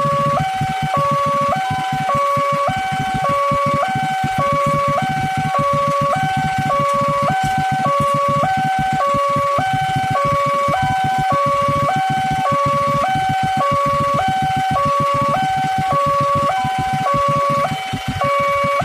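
Railway level-crossing warning alarm sounding, an electronic two-tone signal flipping between a low and a high pitch about once a second, the sign that the crossing is closed for an approaching train. A steady low rumble runs underneath.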